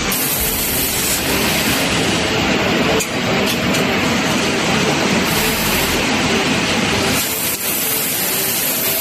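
Loud, steady machinery noise with a strong hiss, its character shifting a few times.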